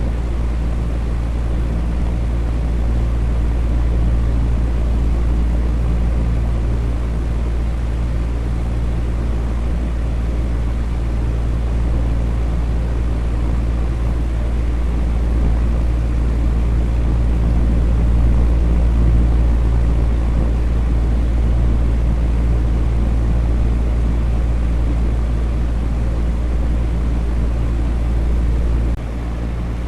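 Electric fan running steadily: a constant rushing noise over a deep low hum. The low rumble drops a little just before the end.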